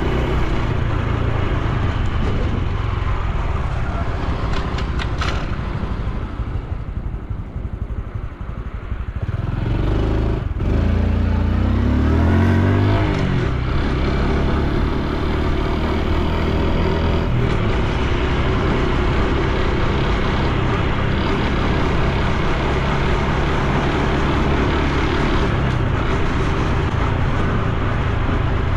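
Honda Super Cub C125's single-cylinder engine and exhaust running on the move. The note falls away as the bike slows, then rises as it accelerates about a third of the way in, and settles into steady cruising.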